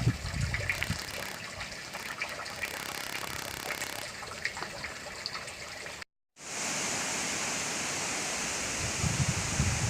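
Footsteps crunching on a dry bush track, with scattered light clicks, then after a sudden cut a steady, even hiss.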